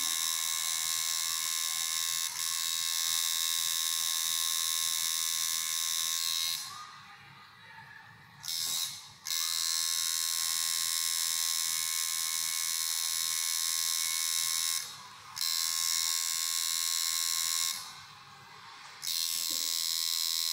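Tattoo machine buzzing steadily as the needle works on skin, stopping and restarting four times, twice for a second or two.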